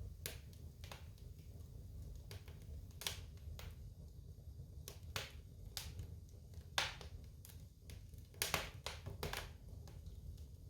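Wood fire burning in a fireplace, crackling with irregular sharp pops over a low steady rumble; the loudest pops come about seven and eight and a half seconds in.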